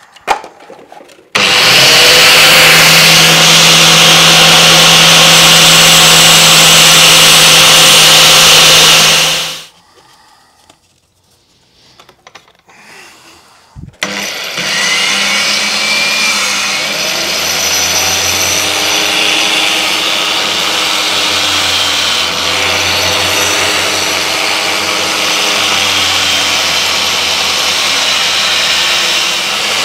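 Angle grinder fitted with a belt-sander attachment running in two spells: a very loud steady run of about eight seconds that winds down, a pause of a few seconds, then a second, quieter run from about fourteen seconds in with a wavering hum. A knife's edge bevel is being ground down to a zero edge on the belt.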